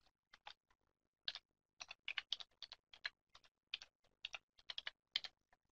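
Typing on a computer keyboard: a faint, uneven string of keystrokes broken by a few short pauses.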